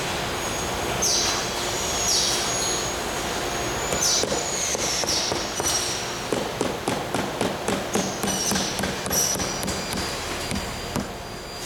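Rubber mallet tapping a vinyl mull strip down along the joint between two replacement window units: a run of quick light knocks, about three or four a second, in the second half. Several short, high, falling squeaks come before it.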